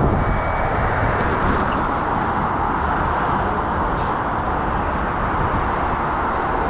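Steady street noise: a continuous traffic hum and rumble around an electric bus standing at the kerb, with two faint short clicks about two and a half and four seconds in.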